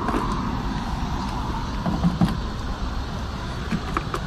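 A yellow water hose being pulled off a hose reel, with a few plastic clicks and knocks about two seconds in and again near the end, over a steady low rumble.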